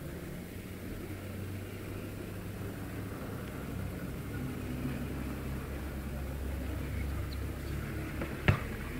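Low steady engine rumble, with a single sharp gunshot crack about eight and a half seconds in.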